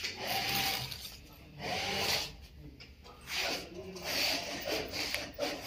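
People talking in short stretches separated by brief pauses.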